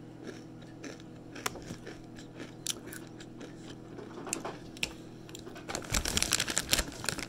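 Close-up chewing and crunching of Flamin' Hot Doritos tortilla chips, with scattered sharp crunches. About six seconds in comes a denser burst of crinkling and rustling as a hand rummages in the foil chip bag.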